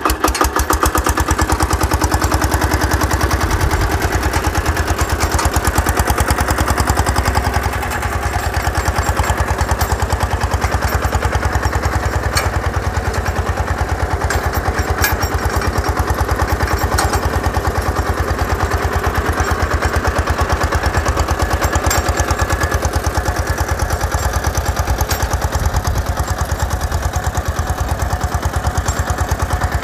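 Sanedo mini tractor's single-cylinder diesel engine running steadily under load with a rapid, even chug as it drags a weeding bar between crop rows.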